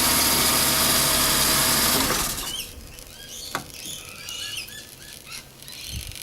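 Idling engine shut off about two seconds in. After that come a series of short, high squeaky chirps and glides: the sucking noise the engine makes after shutdown.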